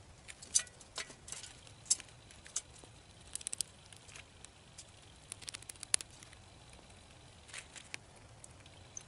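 A gray squirrel foraging in trays of birdseed on a metal patio table: light, irregular clicks, ticks and patter of seeds and claws, some in quick little clusters.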